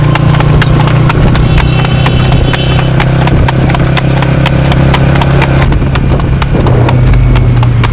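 Hooves of a trotting cart horse striking a paved road: a rapid, even clip-clop, over a steady low rumble.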